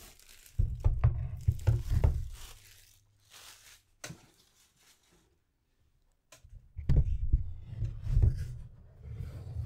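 Clear plastic shrink-wrap crinkling and tearing as it is pulled off a hardcover book's slipcase. Between two bouts of it, the cardboard slipcase thumps and rubs as it is handled on the tabletop, with a short quiet pause in the middle.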